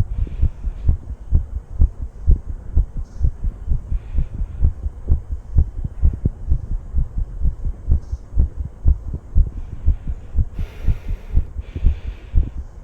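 A person's heartbeat, recorded close up: a steady run of low thumps, beat after beat. A soft rushing noise comes in briefly near the end.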